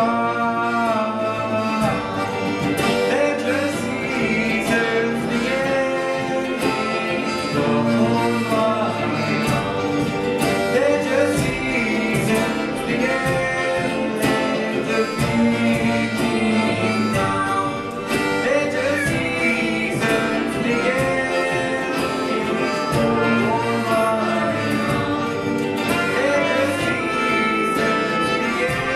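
Live folk-style song: a young male voice singing over a strummed ukulele, with violins and other bowed strings accompanying.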